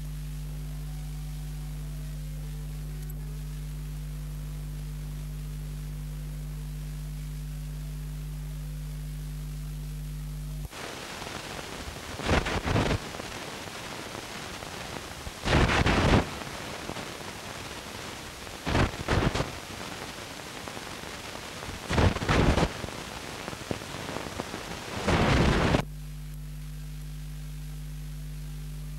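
A steady electrical hum, which is replaced for about fifteen seconds by a rushing hiss with five loud swells roughly three seconds apart, after which the hum returns.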